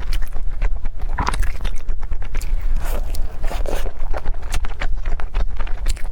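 Close-miked eating: a person biting and chewing food, with irregular wet clicks, smacks and scraping sounds over a steady low hum.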